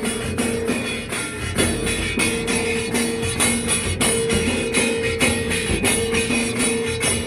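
Group of dhol drums playing a fast, steady beat, with jingling percussion and a melody instrument holding long notes over the rhythm.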